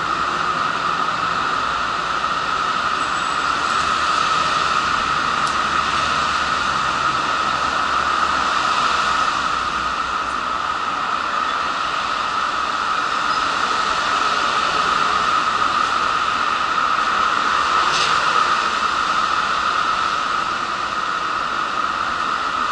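Steady outdoor noise on an open-air station platform: an even hiss with a strong mid-pitched band, and a couple of faint ticks.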